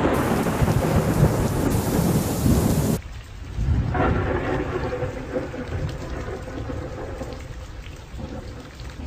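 Heavy rain with thunder rumbling. The sound cuts off abruptly about three seconds in, then a fresh roll of thunder comes about a second later and fades into steadier, quieter rain.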